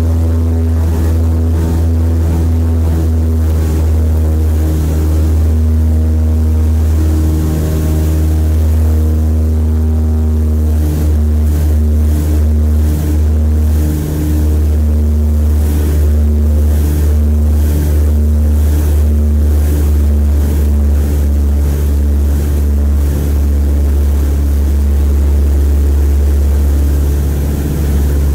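The two Pratt & Whitney R-1830 radial engines of a C-47 at takeoff power, heard from inside the cabin: a loud, steady, deep drone through the takeoff roll and climb-out.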